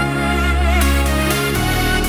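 Background electronic music without vocals, with deep sustained bass; the bass pattern changes about one and a half seconds in.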